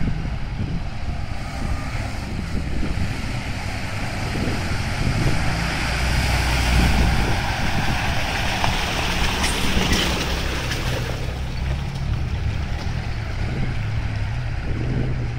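Engine of a small Suzuki SJ-type 4x4 running at low speed as it crawls through a deep, muddy rut, growing louder as it comes close about halfway through, with wind on the microphone.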